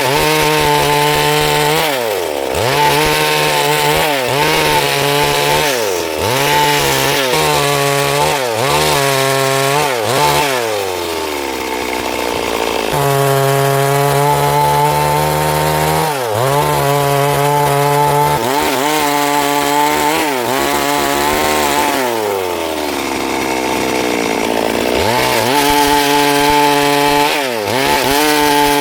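Chainsaw cutting wood. Its engine note keeps dipping and picking back up every second or two as the chain bites under load. It holds steady at high speed for a few seconds midway, and sags more slowly and for longer about three-quarters through.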